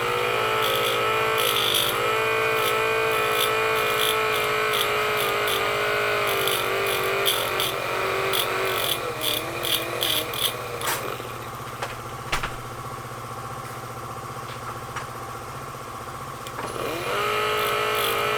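Small air die grinder running at high speed with a steady whine, with irregular scraping ticks as it grinds the burred edges off chainsaw chain drive links. It stops about eleven seconds in and spins up again near the end.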